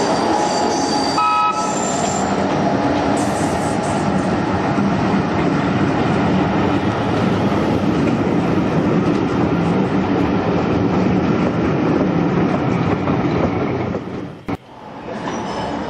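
A real British Rail Class 71 third-rail electric locomotive and its train running, with steady rumbling rail noise and a short, high whistle about a second in. The sound drops away sharply for a moment near the end, then resumes.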